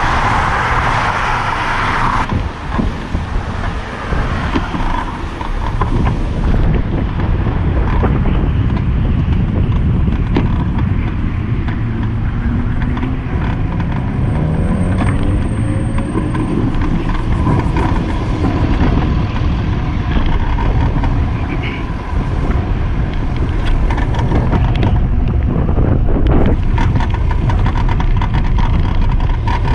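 Road traffic passing close by, cars and trucks with tyre and engine noise, heard over the steady rush of wind on a moving bicycle's camera microphone. A vehicle's engine rises in pitch as it speeds up around the middle.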